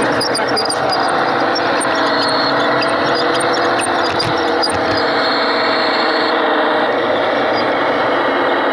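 Garden-scale model train rolling past close by: a steady rumble of wheels on the rails, with small metallic clicks in roughly the first half.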